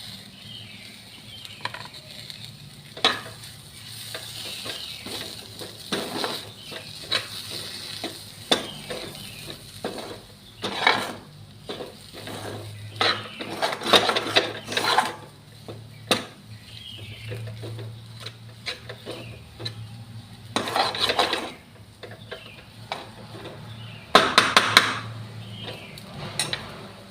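A metal spoon scraping and clattering against a kadhai in irregular strokes, stirring spiced potato filling as it roasts on the gas, with a faint sizzle under it.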